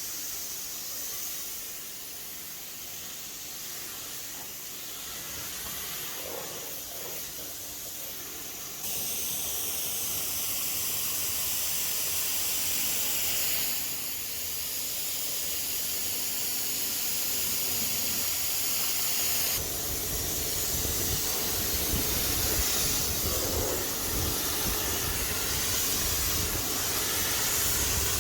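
Steady hiss of a high-pressure water spray hitting a car's bodywork. It changes abruptly twice, and a low rumble comes in under the hiss for the later part.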